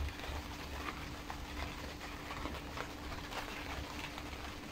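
Faint light clicks and rubbing of nitrile-gloved hands handling a Victa G4 carburettor's plastic primer cap while a rubber O-ring is worked around it. A faint steady hum runs underneath.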